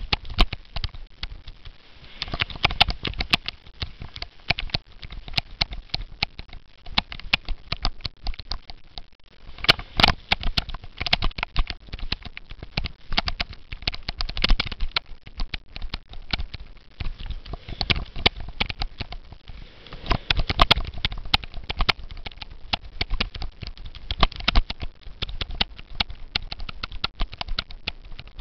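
Cyclo-cross bicycle jolting over a rough off-road course: a dense, irregular clatter of knocks, with bursts of low rumble from the bumps.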